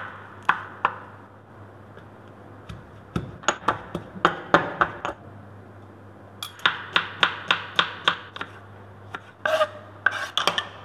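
Kitchen knife chopping vegetables on a wooden cutting board in quick runs of sharp knocks, several a second, with a spoon and knife knocking against a ceramic bowl. A faint steady low hum lies underneath.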